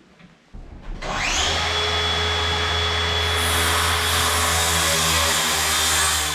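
Electric saw starting up with a rising whine that settles to a steady pitch, running for about five seconds, then winding down near the end.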